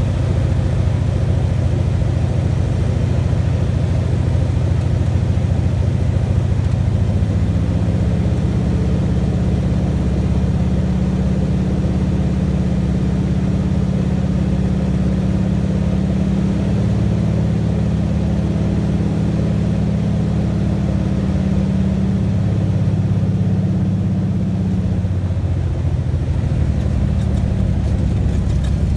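A single-engine bush plane's propeller engine running, heard from inside the cockpit as a steady low drone. Its pitch steps up about seven seconds in and drops back again near the end as the power is changed.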